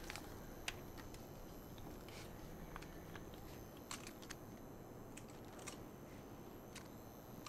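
Faint, scattered clicks and knocks of an AR-15-style rifle's metal and plastic parts as it is handled, over quiet room hiss.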